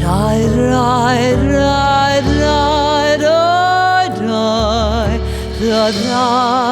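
Music: a singing voice with wide vibrato over steady low accompaniment, with a long note that slides upward and is held about halfway through.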